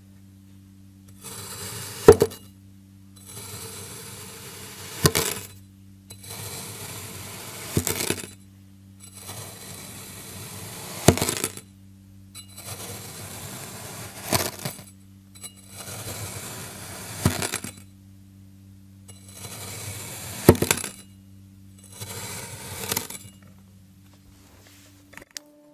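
A blade cutting crunchy kinetic sand, eight times about every three seconds. Each cut is a grainy crunch that ends in a sharp click as the blade reaches the bottom. A steady low hum runs underneath and stops near the end.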